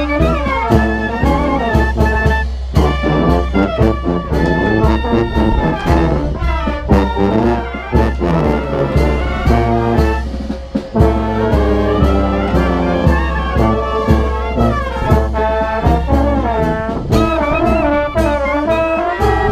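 Municipal brass band playing a tune: trombones, clarinets and tuba together, with a steady beat of about two strikes a second underneath.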